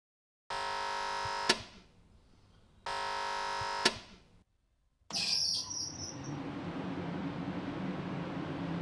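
Baggage carousel warning buzzer sounding twice, each buzz about a second long and ending in a click. About five seconds in, the carousel's conveyor starts with a brief clatter and runs on with a steady hum.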